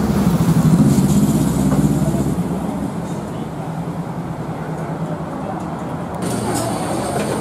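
Street traffic: a large vehicle's engine rumbles close by, loudest in the first two seconds and then easing into steady traffic noise.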